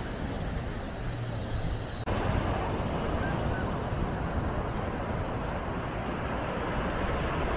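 Wind buffeting the microphone over the rush of surf on a beach, a steady rumbling noise that steps up abruptly about two seconds in; a couple of faint short chirps sit under it.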